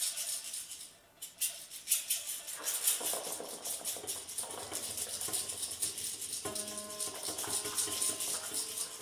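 Free improvised music for trombone and piano: a fast, dry rattling shake runs through, dipping briefly about a second in, and held pitched notes join it about two and a half seconds in.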